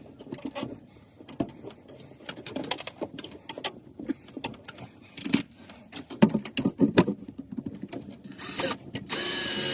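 Irregular clicks and knocks of parts and tools being handled, then a handheld power tool starts and runs steadily about nine seconds in.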